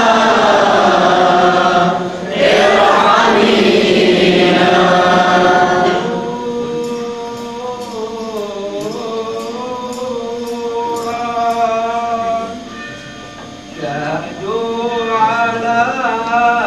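Liturgical chant in church: several voices sing together loudly, then about six seconds in a single voice carries on more quietly, its pitch wavering, with a short break before the singing swells again near the end.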